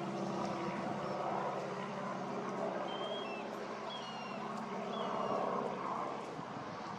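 A steady engine hum under a rushing, gusting wind noise, with several short high chirps from small birds scattered through it.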